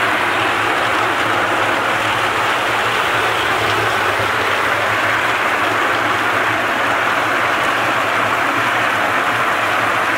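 Walnut peeling machine (Meltem C-120) running: the steady hum of its 1.1 kW electric motor and gear reducer under a constant wet churning as fresh green-hulled walnuts scrape against the grated drum and peeling blades. Water from a hose pours into the drum.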